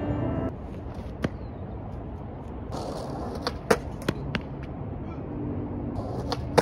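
A skateboard rolling and being pushed along a concrete sidewalk: the wheels rumble steadily, with a few sharp clicks and knocks from the board and the pushing foot, the loudest a little past halfway.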